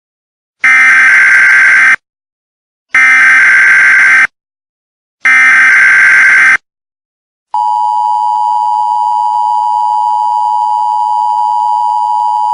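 Emergency Alert System broadcast tones: three identical bursts of SAME digital header data, each a harsh screech of about a second and a half. About seven and a half seconds in, the steady two-tone EAS attention signal starts.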